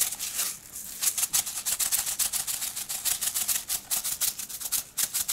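Sesame seeds rattling inside a shaker jar as it is shaken over a tray in quick, rapid strokes, with a short pause just under a second in.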